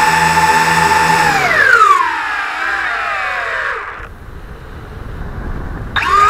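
Motors of a Tarantula X6 quadcopter whining, heard through the keychain camera mounted on it. The several motor tones hold steady, then slide down in pitch together over about three seconds as the motors slow and the drone drops. The sound nearly dies away, and then the motors spin back up with a sharp rising whine near the end.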